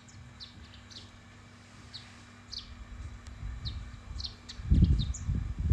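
Small birds chirping: short, high, downward-sliding chirps repeated every half second or so. A low rumble on the microphone swells about three-quarters of the way through and is the loudest sound.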